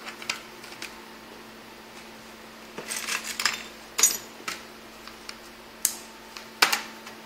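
Plastic snap clips of an Acer Aspire One netbook's top cover clicking loose as the cover is pried around its edge with a guitar pick: a series of separate sharp clicks and light plastic rattles, with a cluster about three seconds in and the loudest snaps about four seconds in and near the end.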